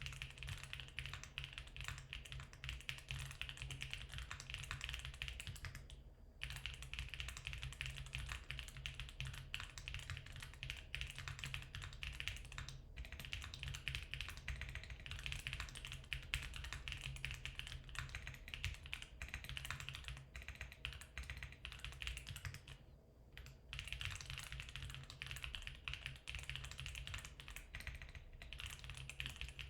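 Steady, fast typing on a Geon Works F1-8K mechanical keyboard with factory-lubed Geon HG Black linear switches on a 1 mm aluminium plate, foam-filled and fitted with Lin Works keycaps. The dense run of key strokes breaks off briefly three times, about six, thirteen and twenty-three seconds in. It is picked up by a laptop's built-in microphone.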